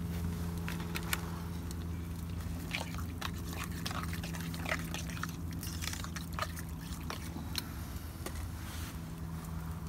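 Wood campfire crackling, with scattered sharp pops and snaps over a steady low hum.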